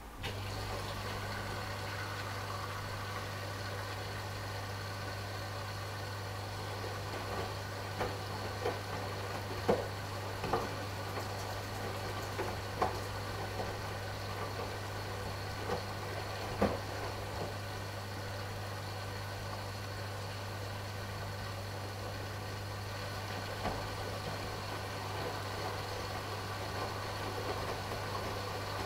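AEG Lavamat washing machine running during its last rinse and spin: a steady low hum that starts suddenly, with scattered light clicks and knocks, most of them a few seconds into it.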